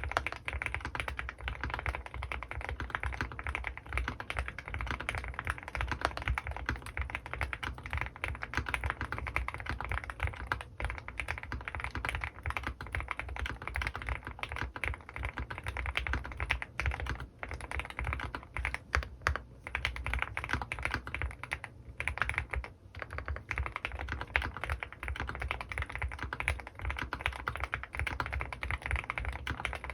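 Continuous fast typing on an Owlab Mr.Suit custom mechanical keyboard with lubed Gateron North Pole linear switches and GMK keycaps: dense keystrokes with a deep low thud under each click, broken by a couple of brief lulls.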